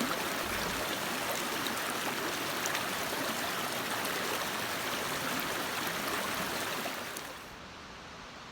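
Stream water running steadily. About seven seconds in it drops to a quieter, duller hiss.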